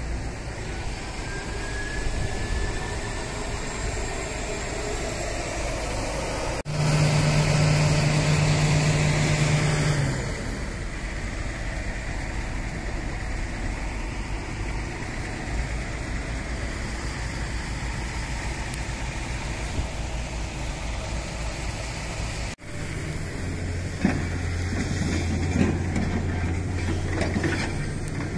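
Tugboat engine running, a steady low drone. A louder segment with a held low tone lasts about three seconds, starting a few seconds in.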